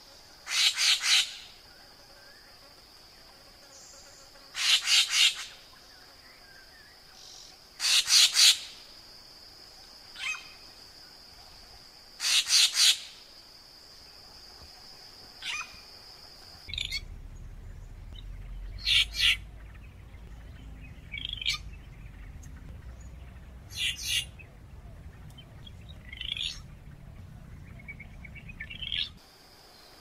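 Racket-tailed treepie (Crypsirina temia) calling: loud, harsh calls of a few rapid notes, repeated about every four seconds over a steady high background tone. About halfway through, the calls turn quieter and shorter, coming every two to three seconds over a low rumble.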